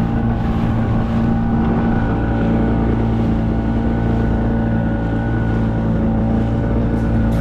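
Motorboat engine running steadily under way, a constant low hum with its overtones, with wind buffeting the microphone.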